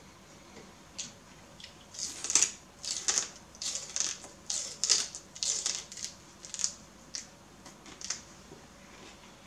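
Raw celery stalk being bitten and chewed: a run of crisp crunches about two a second, starting about two seconds in and stopping near the end.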